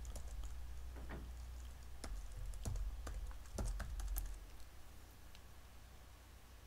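Typing on a computer keyboard: a dozen or so separate keystrokes over the first four seconds, then the typing stops.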